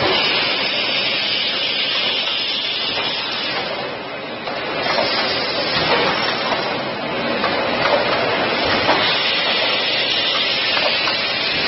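Packaging machinery running, a steady hissing din with faint clicks now and then.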